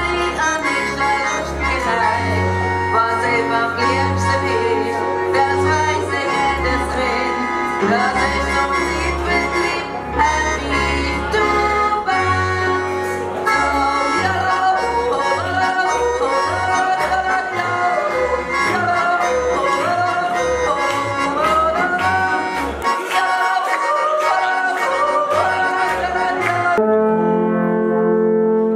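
Live Swiss folk band: an accordion and a plucked double bass accompany a woman singing a wavering melody. About 27 seconds in, the music gives way to alphorns holding long, low notes.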